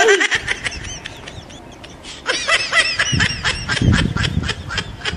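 A high-pitched, sped-up laughing sound effect: quick, evenly repeated giggles in two runs, the second starting a little after two seconds in.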